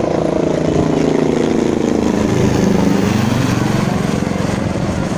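Low-flying aircraft passing overhead: a loud, steady engine drone whose pitch drops about two and a half seconds in as it goes by.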